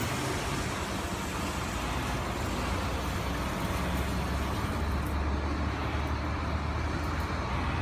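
Industrial belt-type digital textile printer with two printheads running: a steady mechanical hum with a low rumble under an even whirring noise.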